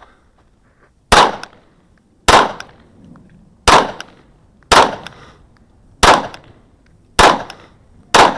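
Kahr CW9 9mm pistol firing seven aimed shots, a little over a second apart, each a sharp crack followed by a short echo.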